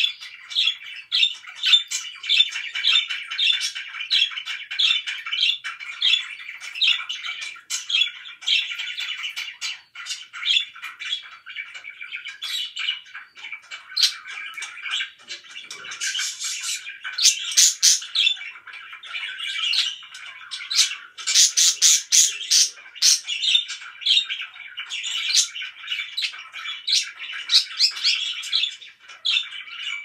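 Pet budgerigars chattering and chirping without a break, a fast stream of warbling notes. Louder bursts of sharp squawks come about halfway through and again a little later.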